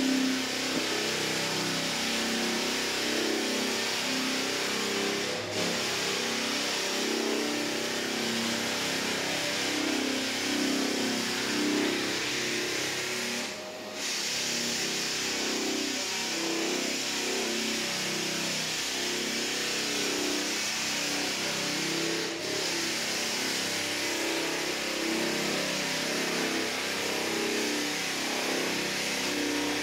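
Walk-behind drum floor sander running steadily, its motor and sanding drum grinding across a hardwood floor. The noise dips briefly three times.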